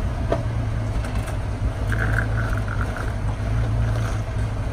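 Willys flat-fender jeep engine running steadily at low revs, a deep rumble, as the jeep crawls slowly over a rock ledge.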